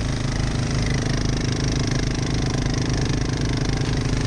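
Honda Fourtrax four-wheeler (ATV) engines running steadily under load as they pull a truck on tow straps.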